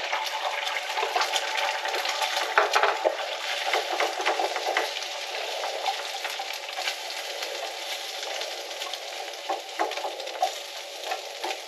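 Beaten egg sizzling in a hot frying pan while a wire whisk stirs and scrambles it, the whisk scraping and tapping against the pan. The sizzle eases a little near the end.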